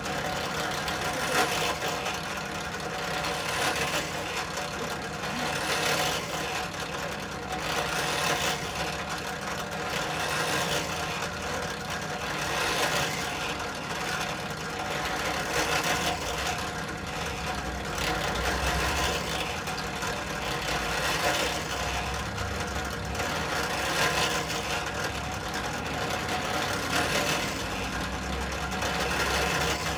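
Benchtop drill press running with a steady motor hum while its bit is fed into a wooden brush handle again and again, each hole bringing a brief swell of cutting noise every second or two. These are the rows of holes that will hold the bristle tufts.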